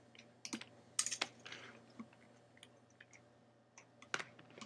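A handful of faint, scattered sharp clicks from working a computer's keys and buttons, irregularly spaced, the loudest a little after a second in and again near the end.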